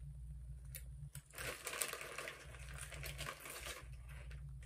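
Crunching of Doritos tortilla chips being eaten, with the foil chip bag crinkling, in a few short bursts.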